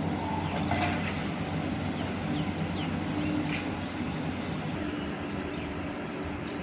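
Diesel engine of a JCB 3DX Plus backhoe loader running steadily under work, with a few short high squeaks in the first few seconds.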